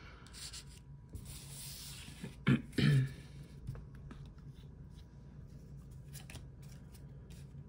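A long breath out, then two short throat or mouth sounds about two and a half and three seconds in, followed by faint light clicks of trading cards being handled.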